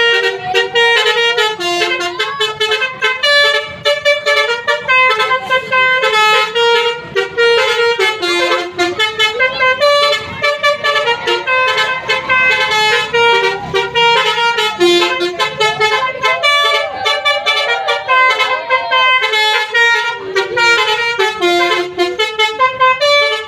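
Basuri-type telolet musical horn on a bus playing a tune: a fast run of short notes stepping in pitch, several tones at once.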